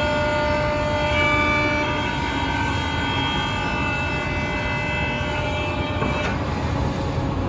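Spindles of a Woodmaster WM-2800-S2R4 four-spindle CNC drilling and milling machine whining at several steady pitches, which shift now and then over a steady machine noise, as it machines a wooden frame. About six seconds in, the whine fades and the noise carries on.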